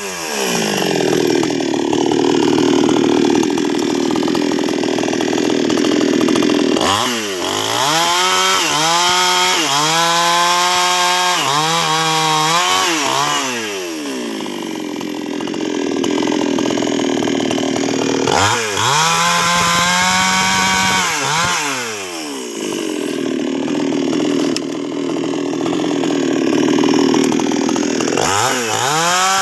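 Nwesst 628 two-stroke chainsaw bucking sengon logs: three long cuts under load, with the engine speeding up into a high free-running whine between cuts as the chain comes out of the wood.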